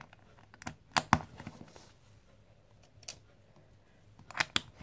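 Plastic Lego pieces clicking as they are pressed together and handled: a few sharp clicks, two about a second in, one about three seconds in, and two more near the end.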